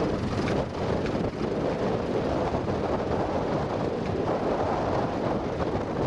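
Tractor engine running steadily while pulling a plough through the ground, with wind buffeting the microphone.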